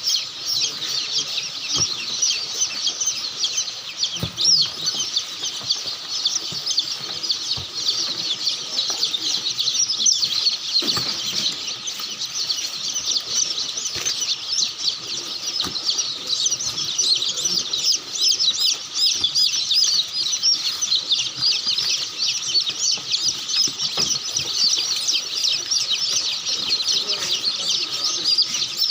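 A flock of chickens calling in a poultry shed: a dense, continuous chorus of high chirps and clucks, with occasional wing-flapping.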